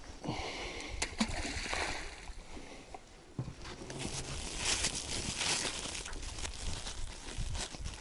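Wet sloshing and splashing as leftover millet-porridge groundbait is scooped up and thrown into the water by hand, with a few sharp knocks about a second in and again after three seconds.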